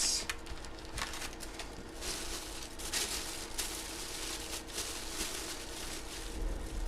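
Soft, uneven rustling and handling noise of trading cards and their plastic packaging, over a faint steady electrical hum.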